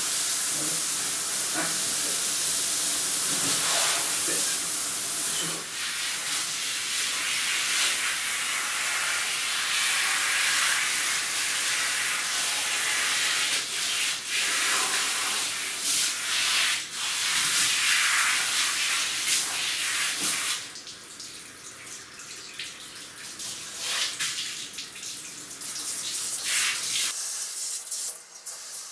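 Handheld shower head spraying water onto a Shetland Sheepdog's coat as a steady hiss. It turns noticeably quieter about two-thirds of the way through.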